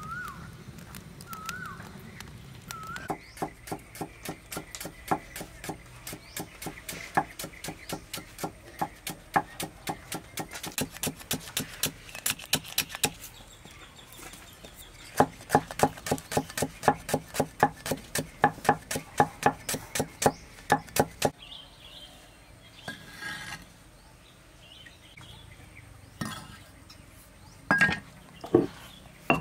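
Steel cleaver chopping lemongrass on a thick wooden chopping block, rapid even strokes at about three to four a second, in two long runs with a short pause between. A bird gives a short rising chirp a few times near the start, and a few scattered knocks come near the end.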